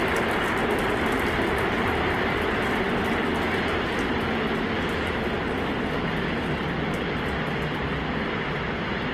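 Super Heavy booster's 33 methane-fuelled Raptor engines firing during a Starship ascent: a steady rushing rumble that slowly fades as the rocket climbs away.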